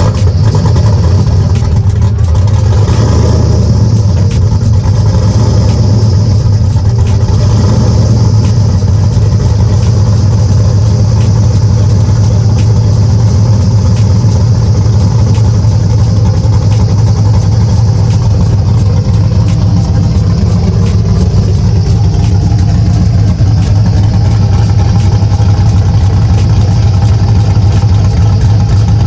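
Car engine idling loudly and steadily just after being started, with a deep, even low hum.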